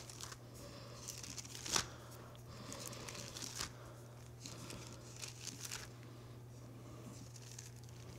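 Thin Bible pages being turned and rustled on a pulpit, with a sharp tap about two seconds in, over a steady low hum.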